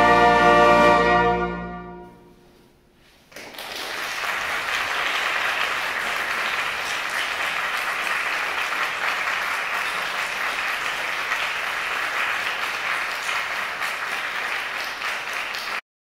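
A brass band of cornets, horns, euphoniums, trombones and basses holds its final chord, which dies away over about two seconds. After a short hush, the audience breaks into steady applause, which cuts off abruptly near the end.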